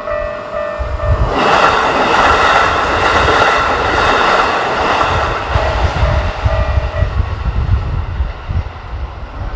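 Keikyu Main Line train passing a level crossing at high speed: a loud rush of wheels and air starts about a second in, lasts some four seconds and then trails off. The crossing's electronic warning bell rings in steady pulses before the train arrives and again as it fades.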